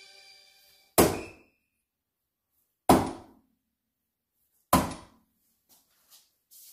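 Three soft-tip darts striking an electronic dartboard (Gran Board 3s), a sharp thunk each, about two seconds apart.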